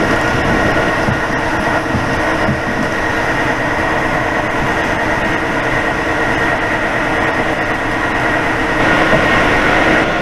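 Stationary locomotive running: a steady, loud mechanical hum with an even high whine held over it, swelling slightly near the end.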